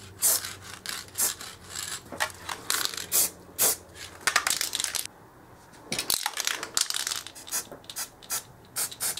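Aerosol can of acrylic spray paint sprayed in a quick series of short hissing bursts, two to three a second, stopping about five seconds in. After a short lull come shorter scuffs and knocks of hand handling.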